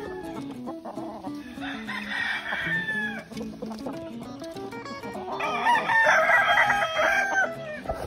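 A gamefowl rooster crowing twice, the second crow, about five seconds in, louder and longer than the first, over background guitar music.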